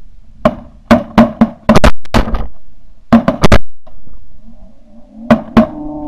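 A rapid volley of shotgun shots from several hunters' shotguns, about a dozen sharp blasts in three bursts. Goose honking comes in over the last second or two.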